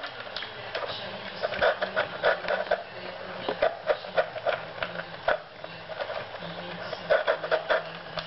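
A dog eating dry kibble fast from a plastic bowl: irregular crunching and clattering of kibble against the bowl, in quick bursts that are busiest about a second in and again near the end.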